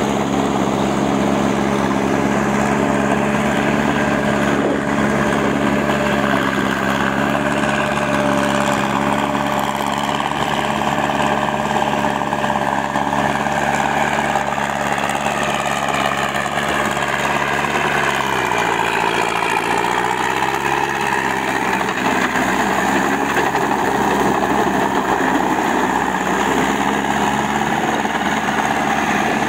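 Massey Ferguson 185 tractor's four-cylinder diesel engine running steadily under load while driving a rotary tiller through a flooded paddy. Its note sags about two-thirds of the way through, then picks up again.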